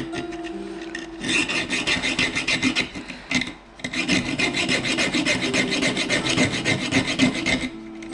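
Rapid back-and-forth filing on a copper wire ring, rasping over a raised soldered seam to level it. It comes in two runs, with a short pause a little past three seconds in.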